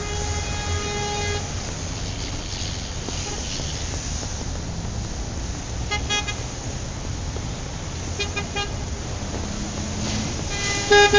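Road traffic with a steady low rumble and vehicle horns sounding several times: a long horn at the start, short toots about six seconds in, a quick run of beeps about eight seconds in, and another horn near the end.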